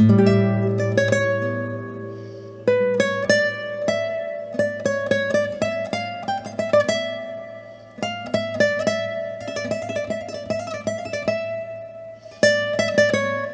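1998 Paco Santiago Marín nylon-string classical guitar being played: a ringing chord over a low bass note, then runs of quick single notes, with new phrases starting on strong chords at about 3, 8 and 12 seconds in.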